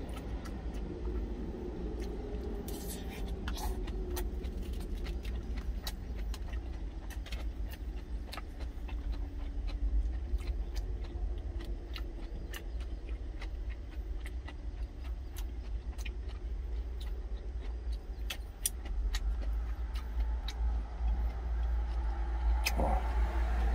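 Steady low rumble of an idling truck engine heard inside the cab, with scattered light clinks and scrapes of a spoon against a stainless-steel lunch container.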